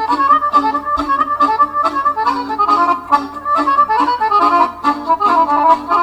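Accordion music with a quick, running melody over a steady rhythmic accompaniment.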